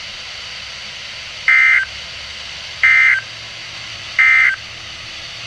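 Three short bursts of EAS/SAME digital data warbling between two high tones, about 1.4 s apart, over steady radio hiss: the end-of-message code that closes the alert broadcast.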